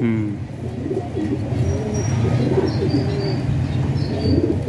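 Several domestic pigeons cooing at once, low wavering calls that overlap throughout, with a few faint high chirps in the middle and near the end.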